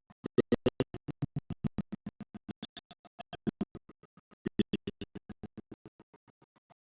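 Background music of quick, evenly spaced staccato notes, about seven or eight a second.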